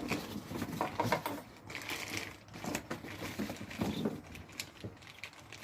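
Irregular clicks, taps and light clatter of small hard parts being handled and fitted together, as when assembling a chainsaw.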